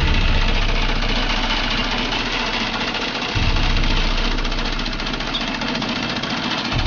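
A motor or engine running steadily, with a low rumble that swells suddenly about every three and a half seconds.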